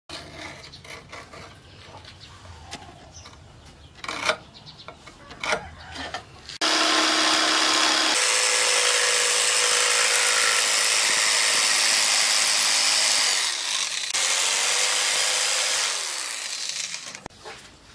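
Electric jigsaw cutting a wooden plank: a loud steady motor whine with the blade's rasp, starting suddenly about a third of the way in, dropping briefly, then winding down with falling pitch near the end. Before it, a few sharp knocks over a low background.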